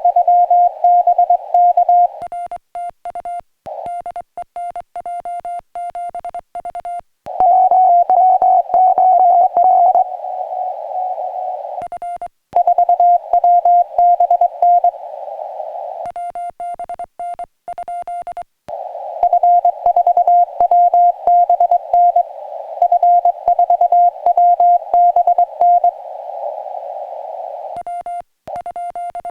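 Morse code (CW) from a portable ham radio transceiver: a single steady mid-pitched tone keyed into dots and dashes. It alternates between clean stretches with faint clicks and stretches with the receiver's band hiss under the tone, as the contacts are exchanged.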